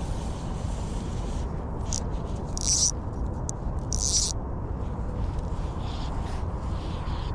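Fly line hissing through the rod guides in two short zips about a second apart, over a steady low rumble.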